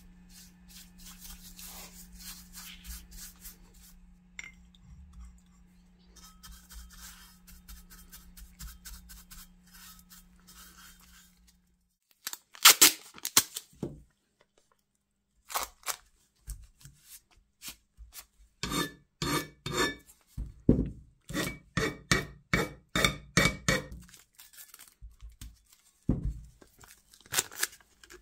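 A stiff bristle brush scrubbing a wet cast-iron grinder part, over a low steady hum. About halfway through, masking tape is pulled off the roll and torn in runs of short, loud rips.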